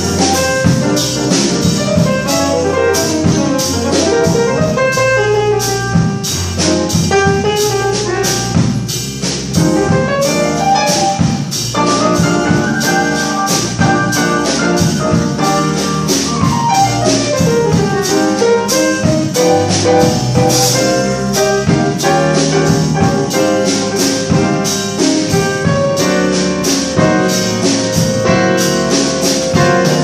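Live jazz combo of piano, upright double bass and drum kit playing an instrumental bolero passage, with the drums keeping a steady beat.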